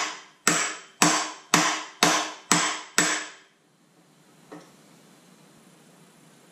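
Seven sharp metallic hammer blows on a hand impact driver, about two a second, each ringing briefly, stopping about three seconds in. The driver is working on a seized manual tilt-release screw in an Evinrude E-Tec outboard's tilt/trim pump.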